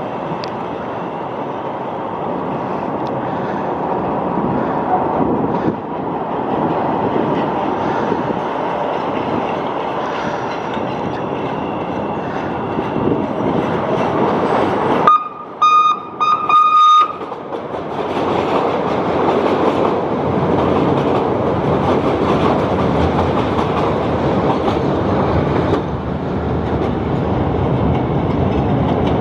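CTA 5000-series rapid transit train running on elevated track, with a steady rumble of wheels on rail. About halfway through, the train sounds its horn in two short blasts on one pitch, louder than the running noise.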